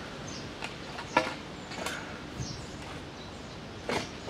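A long-handled digging tool striking into the ground at the base of a fence post being dug out, with a sharp hit about a second in and another near the end. Birds chirp faintly in the background.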